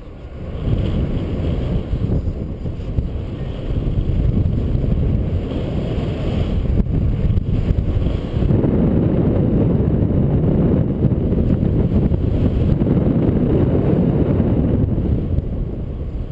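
Wind rushing over the microphone of a camera on a paraglider in flight: a steady low roar of airflow that grows heavier about halfway through.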